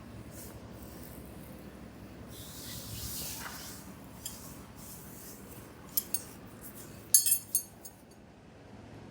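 A soft hiss about three seconds in, then a few sharp light clicks and a quick cluster of clinks near the end, like small hard objects being handled.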